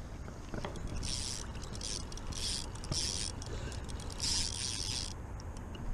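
Fishing reel cranked in several short spurts, each a brief high whirring hiss, as line is reeled in.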